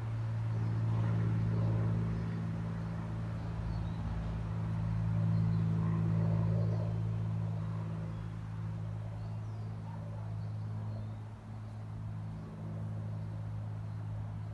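Steady low machine hum, swelling and easing a little, from a motor or engine running outdoors.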